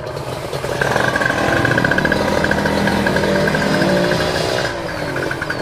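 Yamaha RX-King 135cc two-stroke single-cylinder motorcycle engine with an aftermarket BSX exhaust, getting louder about a second in and revving up as the bike moves off, with a short drop in revs near the end.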